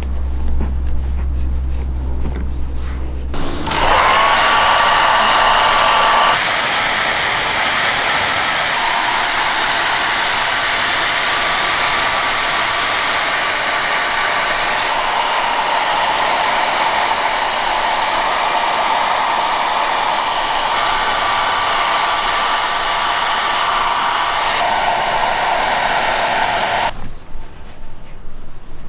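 A hand-held hair dryer switches on about three and a half seconds in, its whine gliding up to speed. It then blows steadily with a thin steady whine and shuts off abruptly near the end. A low hum is heard before it starts.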